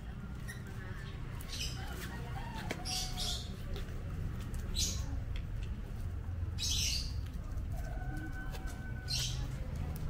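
A child's toy tricycle with plastic wheels rolling over rough concrete: a steady low rumble, with short hissing sounds every second or two.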